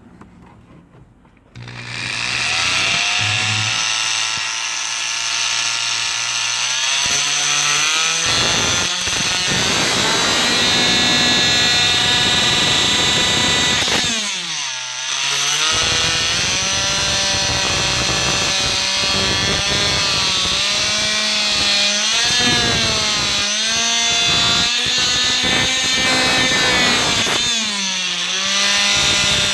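Handheld power tool cutting and grinding through the plastic of a truck's steering column. It starts about a second and a half in, its pitch wavering up and down as it bites, and it drops briefly about halfway through.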